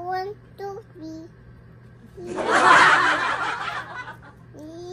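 A person laughing: a few short voiced laughs, then about two seconds in a loud, breathy snicker lasting over a second.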